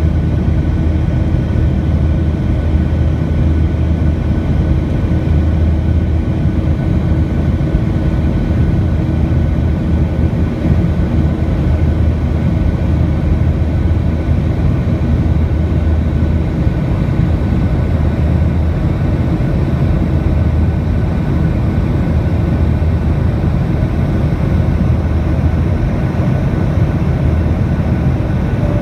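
Boeing 737-800's CFM56-7B turbofan engines and rushing airflow heard inside the cabin in flight: a steady, loud drone, heaviest at the low end, with faint steady whining tones over it.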